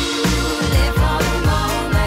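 Background music: a song with a steady beat and singing.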